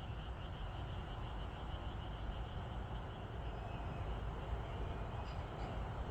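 Night-time outdoor ambience: a steady low rumble, with a high, rapidly pulsing animal call that fades out about a second or two in.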